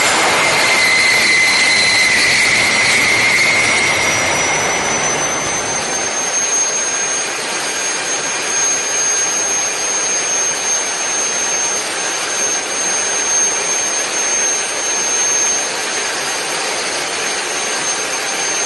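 Small turbojet engine on a test stand running with a steady rushing roar and a high whine. About four seconds in, the whine fades and the sound eases slightly, leaving a steady rush with a thinner, higher whine as the flame goes out and the red-hot engine runs down.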